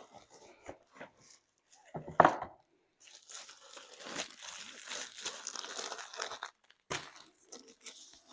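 Diamond painting kit packaging being opened and handled: plastic crinkling and rustling for a few seconds, with a sharp knock about two seconds in and a click near the end.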